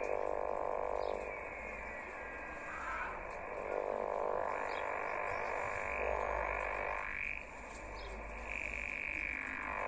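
Yaesu portable transceiver's speaker in USB on the 6-metre band, hissing and buzzing with interference (QRM) as the dial is tuned, with whistling tones that slide in pitch and swells every second or two.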